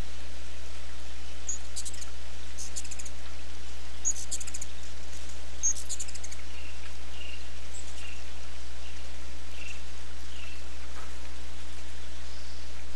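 Ruby-throated hummingbirds giving high, rapid chattering chip calls in four short bouts in the first half, then a few fainter single chips, over a steady hiss and low hum.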